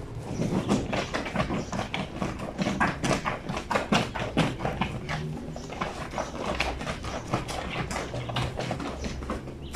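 Wet blanket being hand-washed on a granite laundry sink's washboard: a quick, irregular run of slaps and swishes of soaked fabric against stone, busiest in the first half.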